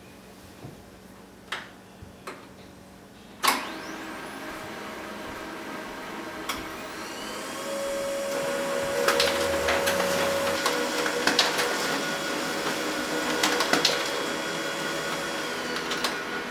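Samsung ML-2545 laser printer waking up and printing a page: a few soft clicks, then a sharp clack about three and a half seconds in as the mechanism starts. Its motors whir with rising whines, growing louder around eight seconds in with a held whine and bursts of clicking and rattling as the sheet feeds through. It stops at the very end.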